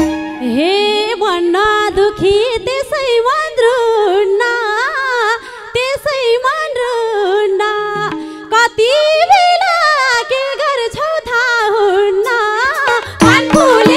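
A woman singing a lok dohori verse into a microphone, one voice with a wavering, ornamented melody and almost no accompaniment under it. Near the end the band comes back in with drums.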